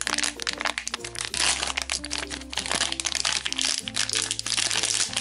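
Foil blind bag crinkling and crackling as hands tear it open and handle it, over light background music with short repeating notes.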